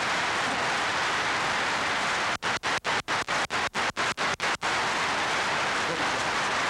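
Large audience applauding steadily, a standing ovation at the close of a speech. About two and a half seconds in, the sound cuts out briefly about ten times in quick succession.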